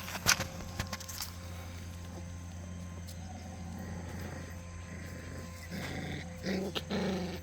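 Jindo puppies growling as they play, with two short, louder growls near the end.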